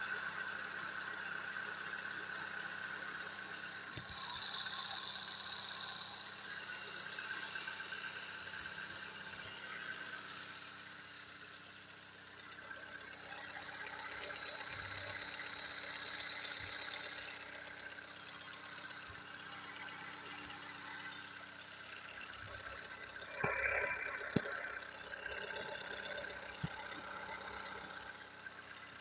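Car engine idling cold and running quietly with no knocking. Near the end there are a few louder sharp knocks and a brief clatter.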